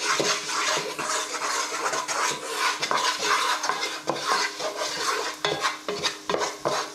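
Wooden spatula stirring and scraping against the sides and base of a non-stick pot in quick repeated strokes, over a steady sizzle of ground spices toasting in a little oil.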